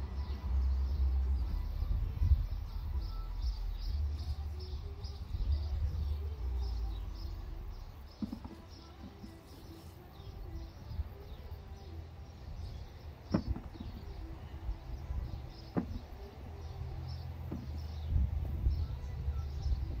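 Wind rumbling on the microphone, stronger in the first half, with faint, rapidly repeated high chirps throughout. Two short, sharp clicks come about three quarters of the way through.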